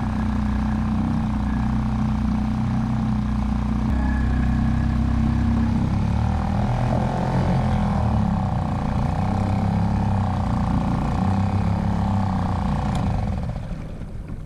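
Petrol outboard motor on a small fishing boat running steadily under way; its sound eases off near the end.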